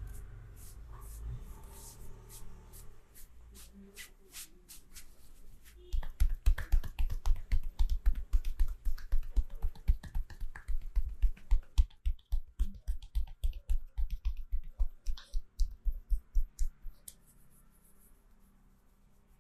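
Percussive massage by hand: rapid, rhythmic strikes on the body, about four to five a second, starting about six seconds in and stopping near the end, with lighter scattered taps before.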